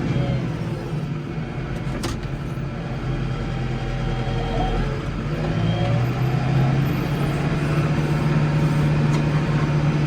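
Case 115U tractor engine running steadily. Its note drops and softens for a few seconds, then picks back up about halfway through. A single sharp click comes about two seconds in.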